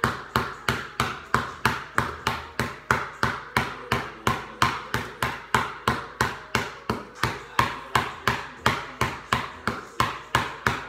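Basketball dribbled hard and fast on a concrete garage floor: a steady run of sharp bounces, about four a second.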